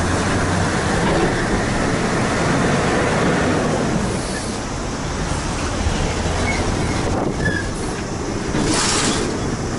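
Heavy semi-trucks hauling shipping containers: diesel engines running and tyres rolling as the tractor units pull away and turn. A short hiss comes near the end.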